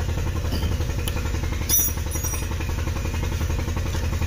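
An engine running steadily at idle with an even low pulsing, and a brief metallic clink a little under two seconds in.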